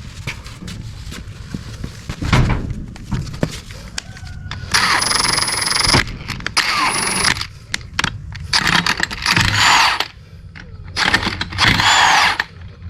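Power wrench on a diesel engine's connecting-rod cap bolts, running in four bursts of about a second each during the second half. Metal clanks come before them, from parts and tools being handled.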